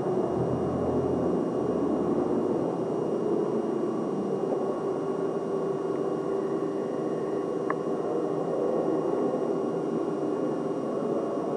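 Steady background hum and hiss with a faint constant tone, with one small click about eight seconds in.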